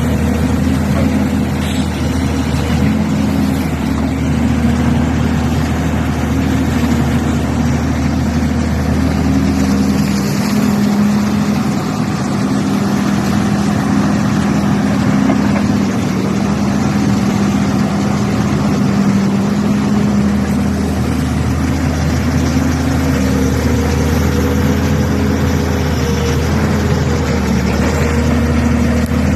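Diesel engines of working backhoes running steadily, a continuous low hum.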